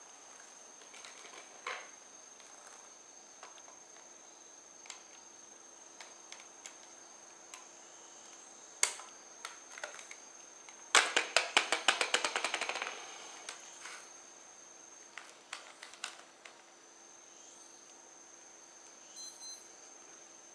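Scattered light clicks and taps from handling and adjusting a Tamiya TGX 1/8 nitro RC car chassis, with a quick run of about a dozen sharp clicks about eleven seconds in. A faint steady high tone runs underneath.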